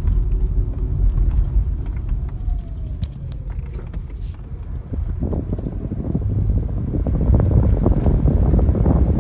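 Low rumble from a 2007 Toyota Highlander Hybrid on the move, growing louder and rougher about five seconds in.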